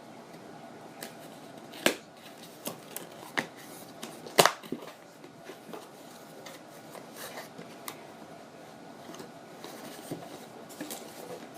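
A cardboard box and its packaging being handled and opened by hand: irregular clicks, taps and rustles, with a sharp snap about four and a half seconds in and another near two seconds.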